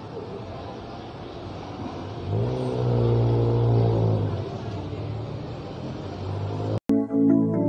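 A motor vehicle's engine revs up about two seconds in, runs for a couple of seconds and fades, over a steady background hiss. About seven seconds in the sound cuts off abruptly and gives way to music with plucked guitar.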